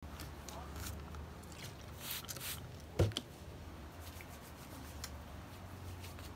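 Faint room sound with a low hum and small handling noises: scrapes and light clicks, with one sharp tap about three seconds in.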